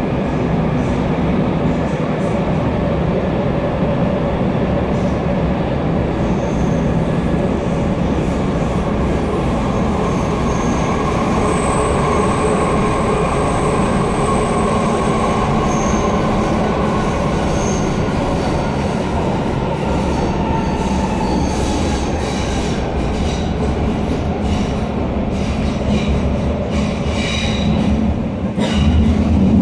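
Nuremberg U-Bahn train heard from inside the carriage, running through the tunnel with a steady wheel-and-rail rumble. Its motor whine falls in pitch through the middle, and a thin, high wheel squeal comes for a few seconds. Near the end the rumble dips briefly and then comes back deeper and louder.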